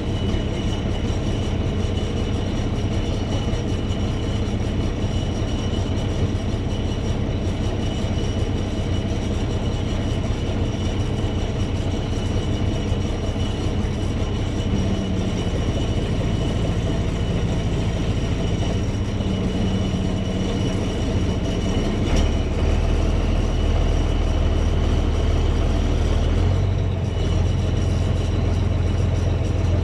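A heavy vehicle's engine running steadily with a continuous low rumble. About two-thirds of the way through, the note drops deeper and gets a little louder.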